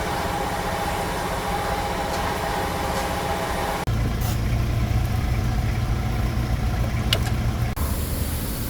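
Car engine idling steadily. The sound changes abruptly about four seconds in, to a stronger, deeper hum, and again near the end.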